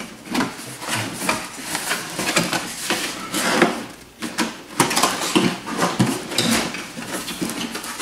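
A cardboard box being opened and its packaging handled: a steady run of irregular scrapes, rustles and knocks of cardboard and packing material.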